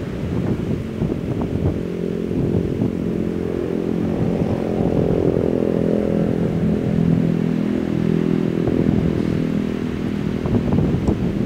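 An engine running steadily with a low, rough hum.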